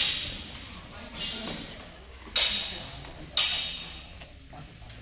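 Steel longsword blades clashing in a fencing exchange: three blade-on-blade strikes about a second apart, the first faint and the next two loud, each ringing briefly.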